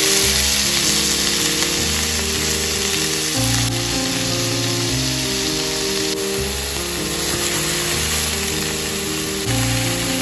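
Rolled chicken breasts and chopped garlic and ginger sizzling steadily in hot fat in a nonstick frying pan. Background music of low, sustained notes that change every second or so plays over it.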